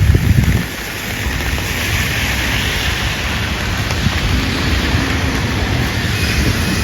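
Traffic hiss on a wet, rainy street: tyres spraying on the wet pavement as vehicles pass, slowly building, over falling rain. A brief low rumble right at the start.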